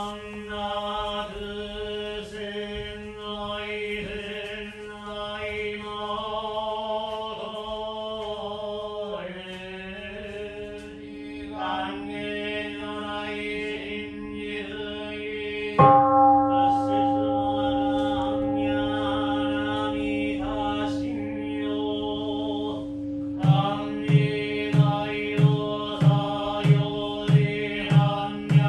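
Shingon Buddhist priests chanting a sutra in steady, drawn-out notes. About halfway through a loud strike marks the start of a new chant on held notes, and near the end a steady knocking beat of about two strokes a second joins the chanting.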